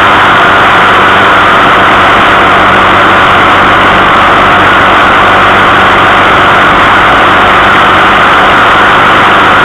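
A small vehicle cruising steadily along a road: a loud, even drone with a faint low hum under it that does not change in pitch or level.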